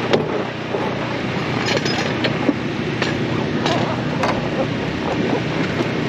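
An engine running steadily, a low even hum, with scattered clinks and knocks over it.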